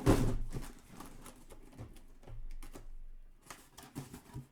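Trading-card box being opened and handled: a sharp knock right at the start, then light clicks, taps and rustles of packaging.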